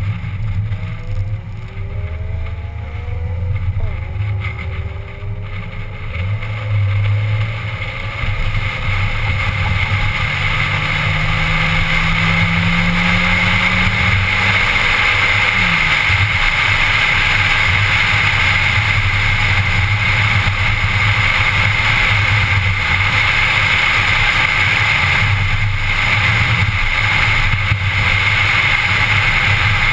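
Car engine pulling hard, its pitch rising several times in the first few seconds and again about halfway, over road and wind noise heard from inside the cabin. The noise grows louder and steadier after about ten seconds as speed builds.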